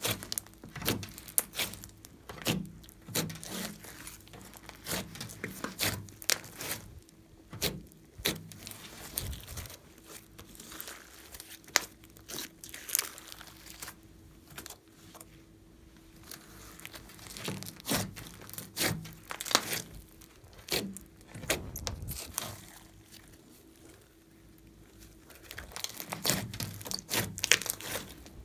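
Hands squeezing, kneading and stretching slime, making irregular sticky clicks and pops in busy clusters, with a quieter stretch in the middle while a long strand is pulled.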